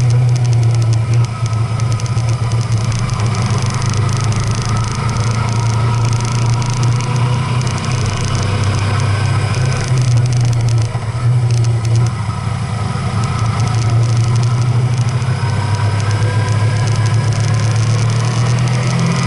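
A vehicle's engine running steadily under way, heard from on board as a constant low drone with road and wind noise.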